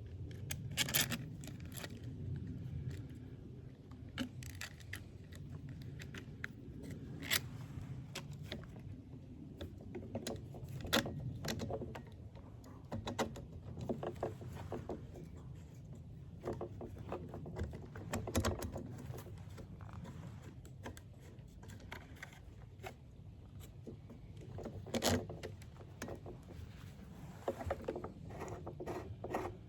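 Hands working on a backpack blower's carburetor and throttle linkage: scattered small clicks, knocks and scrapes of parts being fitted and handled.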